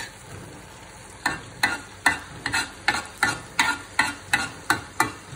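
Metal spatula scraping and knocking against a wok in quick stirring strokes, about three a second, starting about a second in, over a light sizzle of sliced tomatoes and chillies frying.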